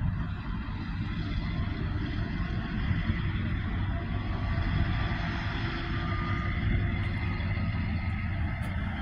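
NR class diesel-electric locomotive running slowly: a steady low engine rumble with a faint steady whine above it.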